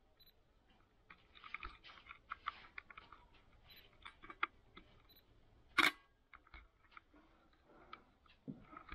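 Faint, scattered clicks and ticks, with one sharp louder click about six seconds in.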